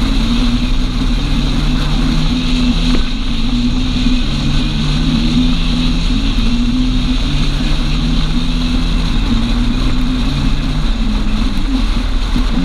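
Vehicle engine running steadily at cruising speed, its hum shifting slightly in pitch now and then, under wind rushing over the camera's microphone and road noise.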